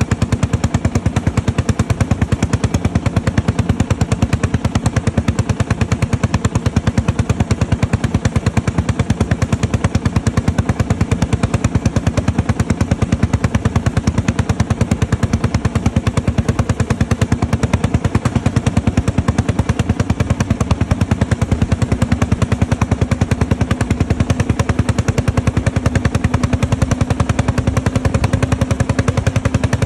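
Pampa T01 tractor's single-cylinder two-stroke hot-bulb engine (a Lanz Bulldog design) running under way, a rapid, even stream of sharp exhaust beats from its upright stack.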